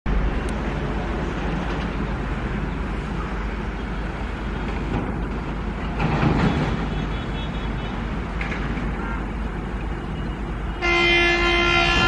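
Steady rumbling noise of an express train drawing near, then about a second before the end the WAP-7 electric locomotive's dual-tone horn blows, loud and steady.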